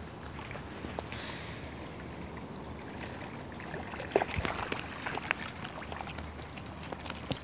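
Footsteps crunching on dry leaf litter and twigs: a few light, irregular crunches and snaps in the second half, over a steady outdoor hiss.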